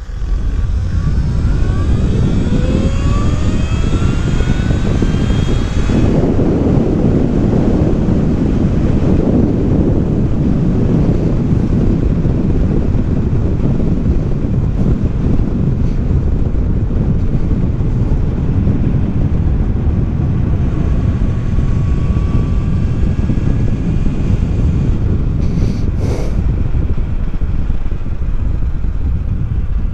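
Zero FX electric motorcycle accelerating hard. Its motor whine rises steadily in pitch for about six seconds with no gear-change breaks, then gives way to heavy wind buffeting on the microphone as it runs at speed. A single sharp knock comes about 26 seconds in.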